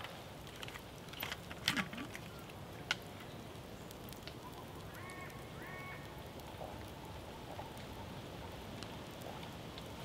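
Small open campfire crackling, with a few sharp pops about a second in and near the three-second mark. A bird gives a short call twice, about halfway through.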